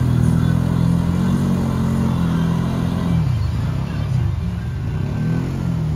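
Off-road vehicle engine running steadily at low revs, its pitch dipping and weakening briefly about halfway through.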